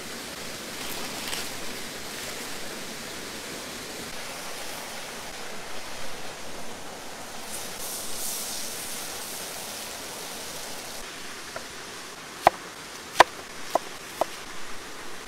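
Steady rushing of a nearby waterfall and stream. Near the end come four sharp knife strikes on a wooden cutting board.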